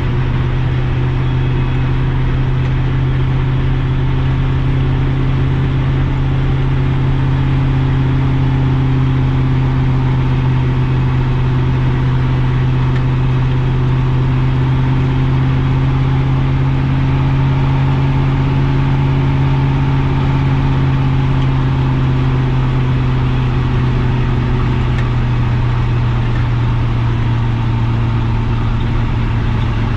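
Chevrolet 6.0 L Vortec V8 in a square-body K30 pickup running steadily under load while towing a heavy trailer, a steady drone whose pitch drops slightly over the last several seconds.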